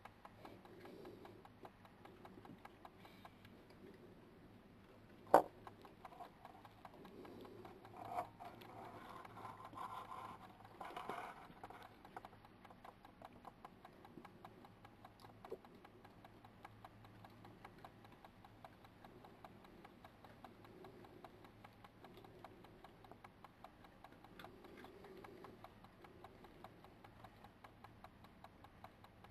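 Foxes and badgers feeding on the ground: faint crunching and rustling, strongest for a few seconds near the middle, over a steady fast ticking. One sharp click about five seconds in.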